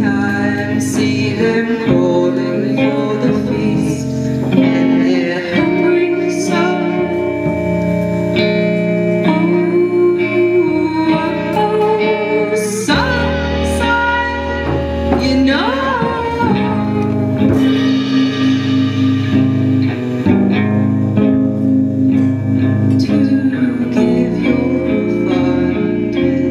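Live band playing: electric guitars, drums and keyboard, with a woman singing over them.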